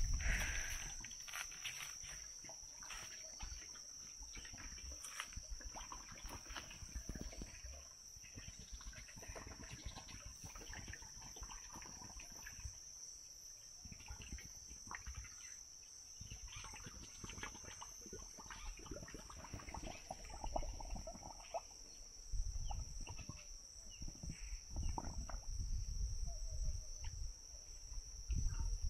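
A steady high-pitched insect chorus drones without a break, over the rustle and footfalls of someone walking through leafy vegetation. Low bumps and rustles grow louder in the last several seconds.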